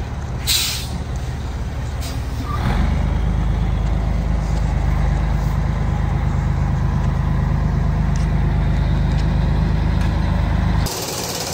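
Scania 113 360 tractor unit's diesel engine running while the truck manoeuvres, with a short air hiss about half a second in. The engine grows louder about two and a half seconds in and stops suddenly near the end.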